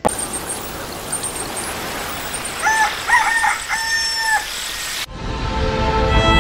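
Rooster crowing a multi-part cock-a-doodle-doo, the last note held, about three seconds in, over a steady hiss with faint high chirps. Music with strings comes in about five seconds in.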